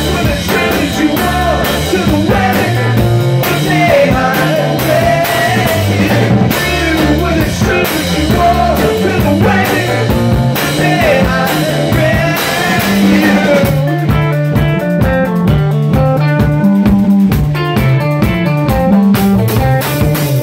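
A live rock band playing, with electric guitar, bass guitar and drum kit. About two-thirds of the way through, the playing turns choppier and more clipped.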